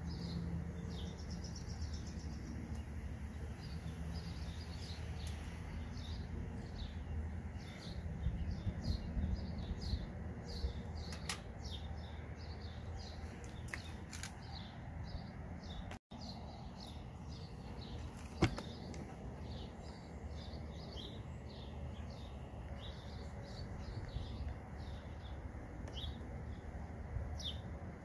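Birds chirping over and over, several short chirps a second, over a steady low rumble of background noise. A few sharp clicks are heard, the loudest about two-thirds of the way through, from parts being handled.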